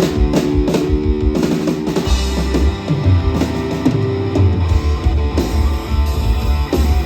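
Live rock trio playing: an electric guitar riff over drum hits, with a deep bass line coming in about two seconds in.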